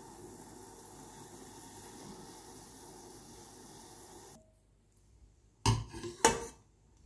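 White mulled wine with cinnamon sticks boiling hard in a stainless steel saucepan, a steady hiss that stops about four seconds in. Near the end a metal ladle clinks twice against the pan, about half a second apart, as it scoops the wine.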